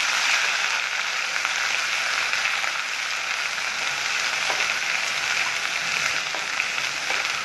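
Ginger, garlic and cumin paste with browned chopped onions sizzling in hot oil in a non-stick wok while a spatula stirs it: a steady frying hiss with a few faint scrapes of the spatula.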